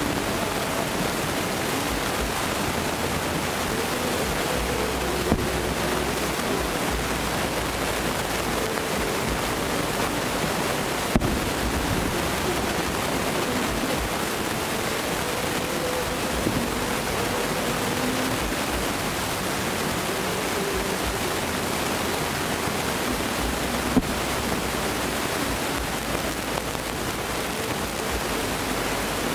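Steady, even wash of outdoor noise, with faint distant thumps about five seconds in, again near the middle, and once more later on.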